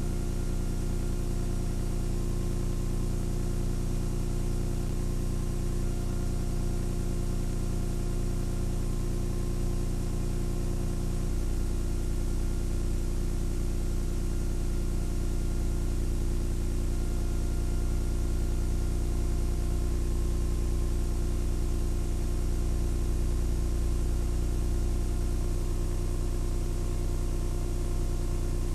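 Steady machine hum with hiss, made of several fixed low tones; about eleven seconds in its lowest tones change and grow stronger.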